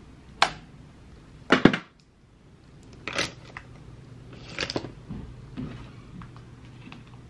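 Makeup compacts and cases being handled, clicked open and shut and set down: a series of sharp clicks and knocks, the loudest a pair about one and a half seconds in.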